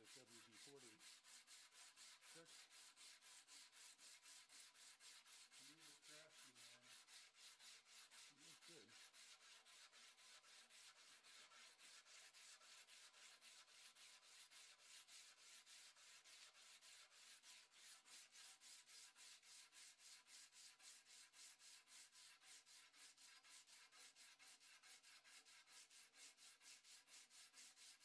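Hand sanding a 5160 spring-steel sword blade with 80-grit sandpaper: faint, even back-and-forth rubbing strokes, about three a second.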